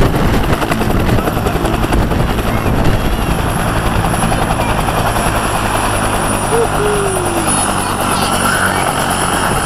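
Bell AH-1 Cobra helicopter running: steady rotor beat and turboshaft noise, with a thin high whine that climbs a little about halfway through.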